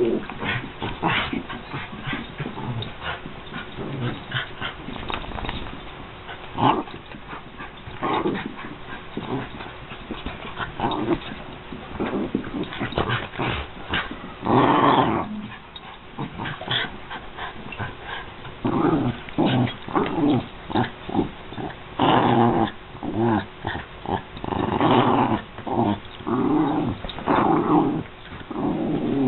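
Several American Eskimo dogs play-fighting, growling in short bouts. The growls are louder and longer about halfway through and again over the last several seconds.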